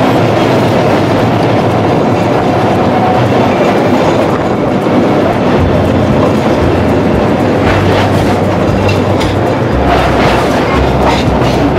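Kolkata electric tram running along its street track, heard from on board: a steady rumble and rattle of steel wheels on the rails, with a low hum coming in about halfway and a few sharper clacks near the end.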